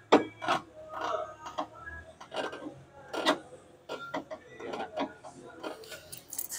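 Van sliding door being worked by hand at its lower track: an irregular series of metal clicks and knocks as the door and its slider hardware shift and catch.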